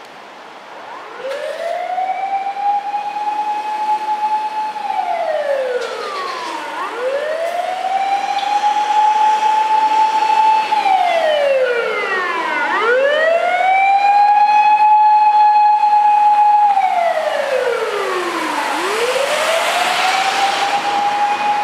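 Japanese fire engine siren wailing: each cycle rises over about a second, holds one tone for several seconds, then slides down, repeating about every six seconds. A second siren overlaps near the middle, and a rush of noise swells near the end.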